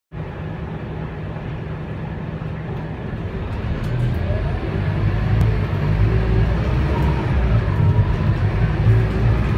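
The Scania DC9 9.3-litre five-cylinder diesel engine of a Scania K280UB bus, heard from inside the passenger cabin as a steady low hum. It grows louder from about four seconds in.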